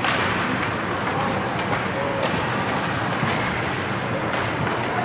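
Ice hockey game in play: a steady hiss of skates on the ice, with several sharp clacks from sticks and puck.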